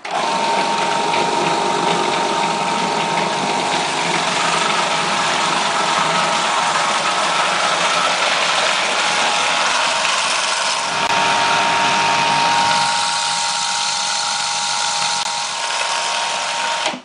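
Electric mixer running steadily on the cake batter, a loud motor whine with a constant pitch that starts and cuts off abruptly.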